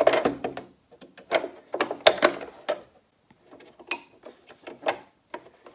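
Irregular clicks and light metal knocks as the needle plate is handled and set back into place on a Janome XL601 sewing machine.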